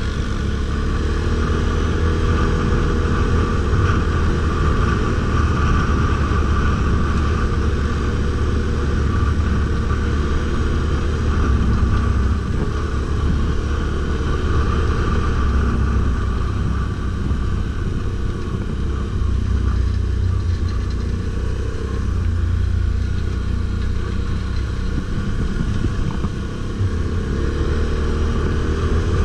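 Stels Guepard 850 ATV engine running steadily while riding, holding a fairly even pace without large changes in revs.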